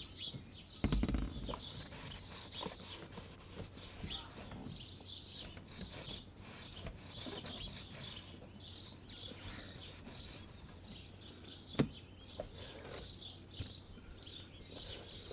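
Small birds chirping steadily in the background, with a dull thump about a second in and a single sharp knock near the end.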